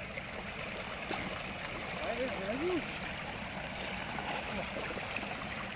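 Shallow stream running fast over rocks: a steady rush of water. About two seconds in, a short faint vocal sound rises and falls over it.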